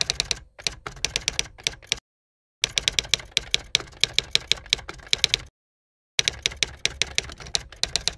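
Typewriter keystroke sound effect: rapid clacking key strikes in three runs, broken by two short dead silences about two and six seconds in, laid under on-screen text being typed out.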